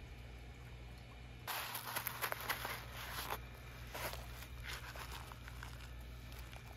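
Scratchy, crackling rustles: one long burst about a second and a half in, then two shorter ones near the end, over a steady low rumble.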